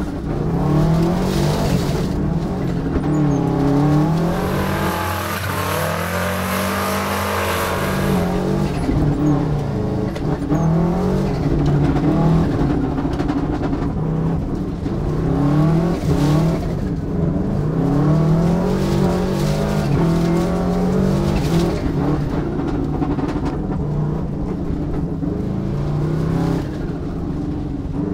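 Turbocharged Subaru EJ22 flat-four engine of a rally car, heard from inside the cabin, revving up and falling back again and again as the car accelerates, shifts and lifts.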